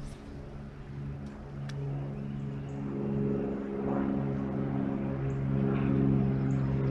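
A motor running with a steady low note and its overtones, growing steadily louder as it draws nearer.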